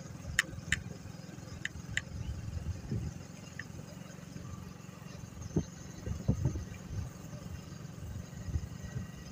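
Gusty low rumble of wind and a motorcycle running on the microphone while riding, with a few sharp clicks in the first two seconds.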